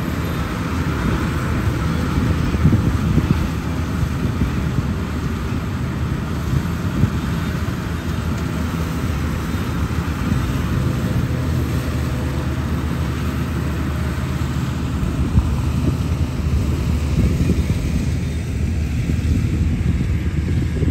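Zoomlion FH100E tracked rice combine harvester running steadily as it cuts rice: a continuous engine hum with the machine's working noise, holding even throughout.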